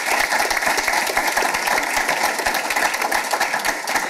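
An audience of students applauding, many hands clapping together at a steady level.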